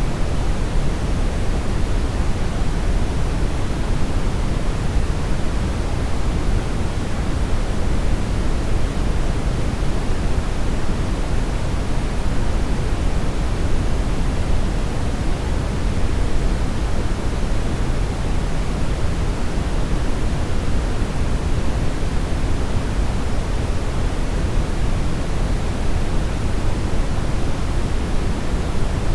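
Steady brown noise: an even, deep rushing hiss, strongest in the low end and unchanging throughout.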